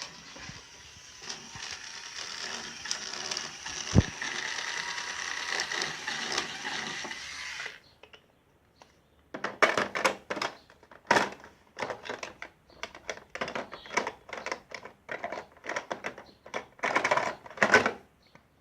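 Hand tools and toy parts during a toy repair: a steady rattling noise with one sharp knock partway through, cutting off suddenly about eight seconds in. After a short pause come many irregular clicks and clacks of parts and tools being handled.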